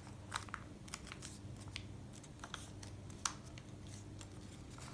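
A sheet of paper being folded and creased by hand: scattered soft crinkles, rustles and small taps, over a faint steady low hum.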